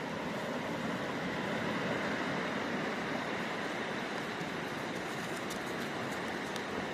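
Sea surf washing in a steady, even rush, with a few faint clicks in the second half.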